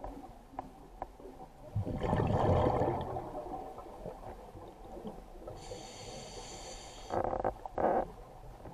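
Scuba diver breathing through a regulator underwater. A bubbling, rumbling exhale about two seconds in, a hissing inhale around six seconds, then the next exhale starting in two quick pulses near the end.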